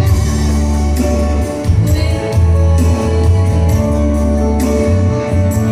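Music with a steady beat, strong bass and held notes.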